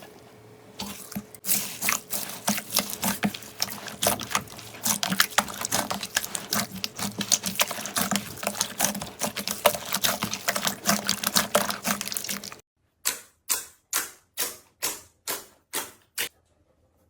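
Slime being worked by hand close to the microphone: a dense run of wet crackling and popping clicks, then near the end about nine separate wet squishes at an even pace of a couple per second.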